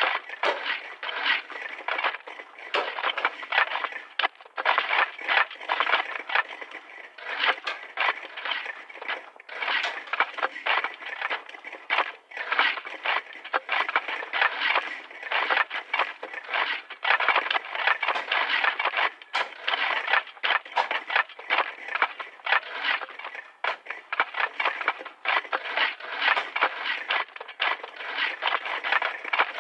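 Several shovels digging, their blades scraping and biting into the ground in quick, overlapping strokes, with a few short pauses.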